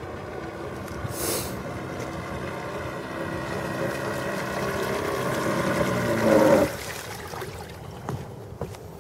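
Four-stroke engine of a radio-controlled model boat running, its note growing louder as the boat comes in close, then falling away abruptly about two-thirds of the way through. There is a short hiss about a second in.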